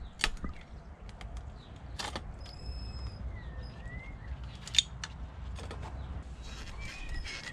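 Scattered clicks and knocks of plastic and metal as hands work at a Subaru WRX fuel pump assembly lifted out of the tank, prying at its clips and fittings. The sharpest click comes about five seconds in.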